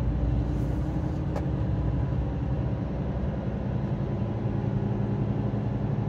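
Hino semi-tractor's diesel engine running steadily while the truck drives, heard from inside the cab as an even low drone over road noise.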